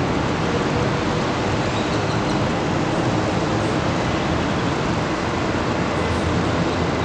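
Steady drone of distant city and freeway traffic, an even rumble with no single vehicle standing out.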